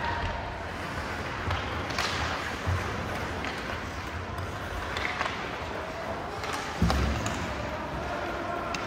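Ice hockey play on a rink: a series of dull thuds and sharp knocks from puck, sticks and players against the boards, the loudest and deepest about seven seconds in, over a steady hum of voices in the arena.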